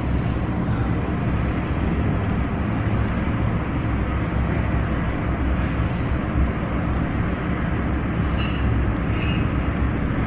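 Wind buffeting the microphone on an exposed high-rise rooftop: a steady, unbroken low rumble.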